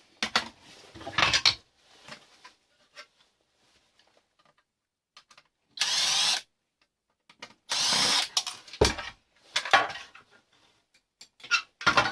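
Tools working an alarm system control box apart: a run of short scraping and rattling bursts. Near the middle come two steady, harsher bursts about half a second long each, and a sharp knock follows them.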